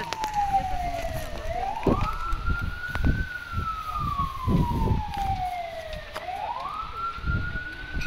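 Emergency vehicle siren sounding a slow wail: each cycle climbs quickly in pitch, then falls slowly over about three to four seconds, rising again twice. Low rumbling noise runs underneath.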